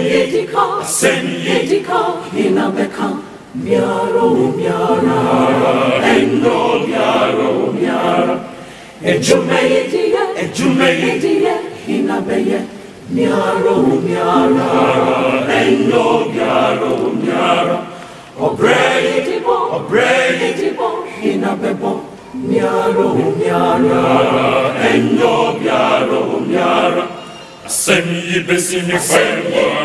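Large mixed choir singing in several-part harmony, in phrases broken by brief breaths every few seconds.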